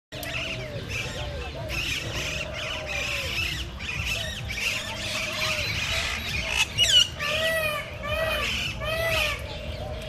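A mix of birds calling and squawking over one another, with a sharp rising call about seven seconds in and then three loud squawks in quick succession.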